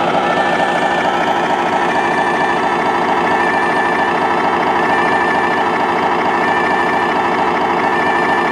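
Electronic sound module of a large-scale RC model vehicle playing a steady engine idle through its speaker.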